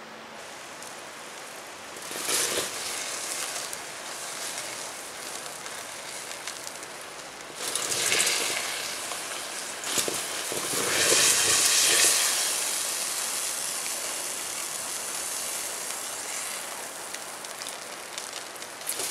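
Magnesium shavings burning fiercely in a galvanized steel bucket: a loud, steady hissing and crackling that surges about two seconds in, again around eight seconds, and most strongly from about ten to twelve seconds, then settles back to a steady hiss.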